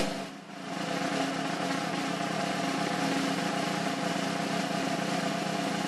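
A steady mechanical drone with several constant hum tones, fading in over the first second and then holding level.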